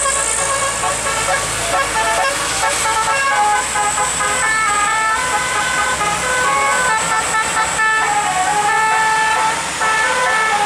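Bus "telolet basuri" multi-tone air horn playing a stepping melody of several notes at once, over the low rumble of passing heavy vehicles.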